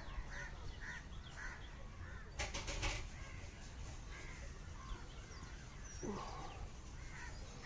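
Crows cawing faintly in the open, with scattered small bird calls; the loudest run of calls comes about two and a half seconds in.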